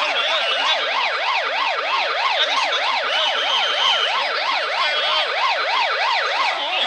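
Police car siren in rapid yelp mode, its pitch sweeping up and down about three to four times a second without a break.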